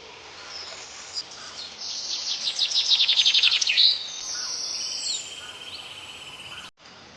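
Rainforest birds calling, with a loud, fast run of repeated high notes about two seconds in, followed by a steady high insect buzz, with other chirps scattered throughout. The sound drops out briefly near the end.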